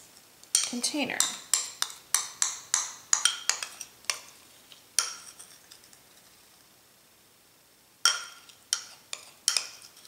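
A metal spoon clinking and scraping against a small glass bowl as a wet powder paste is scooped out. There is a quick run of sharp clinks for several seconds, a pause, then a few more near the end.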